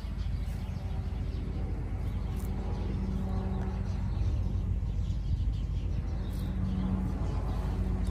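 A vehicle engine idling: a steady low hum with a rumble under it. Birds chirp faintly a few times.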